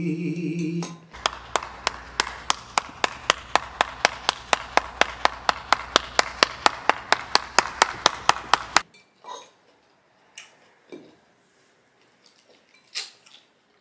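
The end of a held sung note, then a fast, perfectly even run of sharp clicks or claps, about four a second over a faint steady hum, for some seven and a half seconds before stopping abruptly. A few faint, scattered clicks follow.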